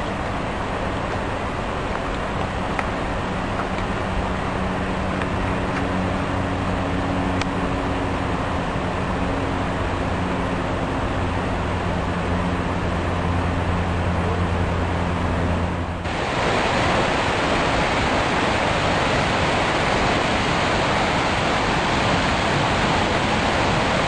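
Steady rush of falling water from the Sirithan waterfall, with a steady low hum beneath it at first. About two-thirds of the way through, the sound changes abruptly to a louder, fuller rush of the falls, and the hum is gone.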